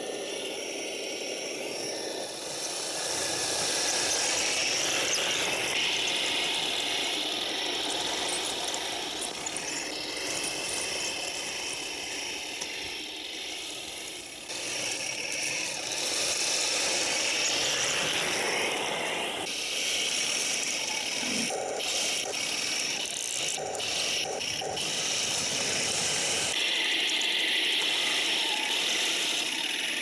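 1/16-scale Taigen Panther PRO RC tank driving over rough forest floor: its electric drive motors and metal gearboxes whirring, and its metal tracks squealing and rattling.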